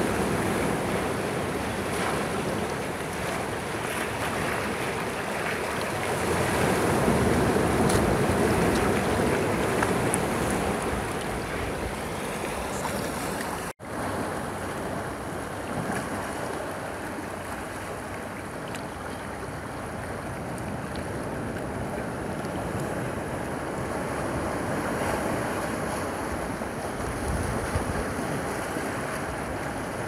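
Sea waves washing in over shoreline boulders: a steady rush of surf that swells and eases. The sound cuts out for an instant about halfway through and comes back softer.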